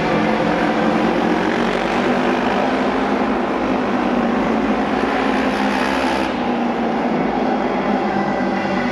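Several Japanese auto race motorcycles with 600cc twin-cylinder engines running at speed on the oval track, a loud continuous engine sound that doesn't let up.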